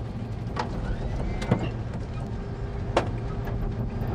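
Boeing 747 freighter rolling down the runway, heard from the flight deck as a steady low rumble. Three sharp knocks come through, the loudest about one and a half seconds in.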